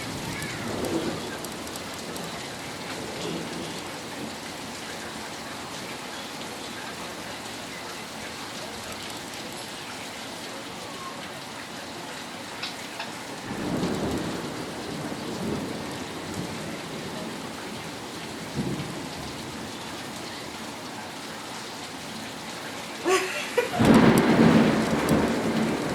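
Steady rain falling hard, with thunder rumbling in swells, the loudest one starting near the end.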